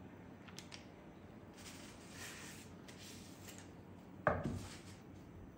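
Butter blocks being handled on a wooden cutting board: a few light taps and a brief soft rustle of the paper wrapper, then one sharp knock about four seconds in.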